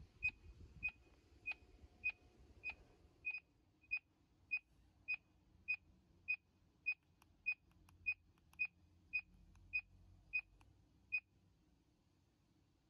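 Handheld SatHero satellite signal meter beeping its signal tone: a steady run of short, identical high beeps about 0.6 s apart while it is locked on a satellite signal. The beeping stops about a second before the end.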